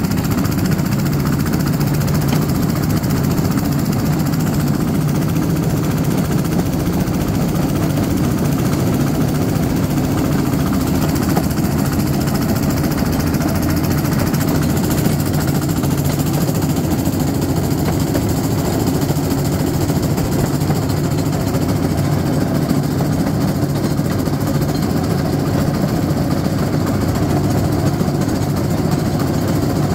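Motorized railcart (speeder) running steadily down the track: a constant engine drone with the rattle and vibration of the cart rolling on the rails.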